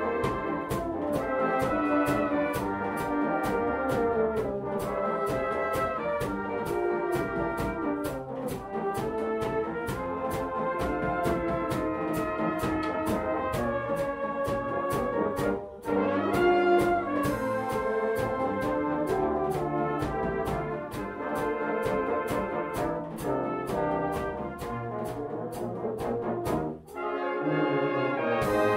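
Brass band playing: cornets, horns, trombones and tuba in harmony over a steady drum-kit beat, with a brief break about sixteen seconds in and another near the end.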